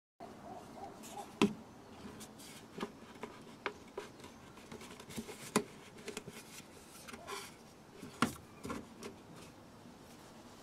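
Plastic and rubber air intake duct being handled and pushed into place on the engine: scattered clicks and knocks of hard plastic, the sharpest about one and a half seconds in and again about eight seconds in.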